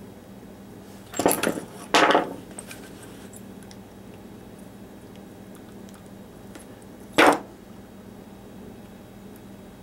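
Red-handled wire crimping pliers handled and closed on crimp connectors joining a drill's battery leads: three short metallic clatters, two close together a little over a second in and one near seven seconds, the last as the pliers are laid down on the wooden bench.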